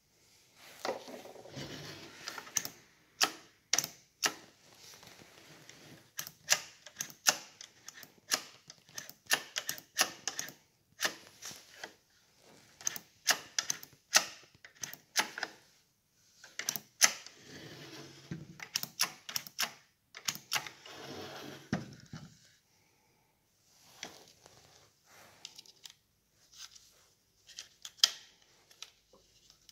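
Irregular sharp plastic clicks, knocks and rustling as the yellow air filter of a Husqvarna 445 II chainsaw is handled, lifted away and fitted back over the carburettor, with the parts around the choke lever worked by hand. The clicking is busiest in the first two thirds and thins out near the end.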